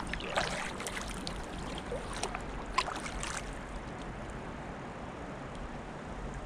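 Creek water running and trickling around a kayak, with a few short sharp knocks or splashes in the first half.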